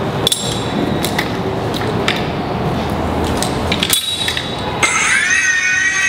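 Clicks and clinks of metal hardware as a rope ascender is clipped to a harness. About five seconds in, the ascender's electric motor starts with a rising whine that settles into a steady high whine as it hauls a climber up the rope.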